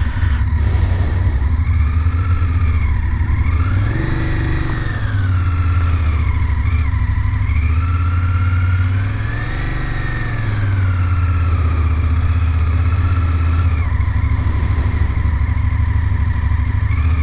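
BMW F750GS parallel-twin engine running as the motorcycle rides off at low speed, its pitch rising and falling twice as the throttle is opened and eased.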